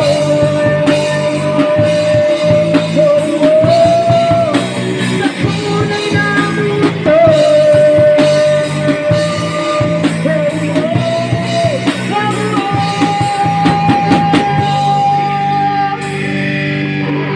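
A rock band playing live: drums, guitar and bass under long held melody notes, with singing. The playing eases off near the end.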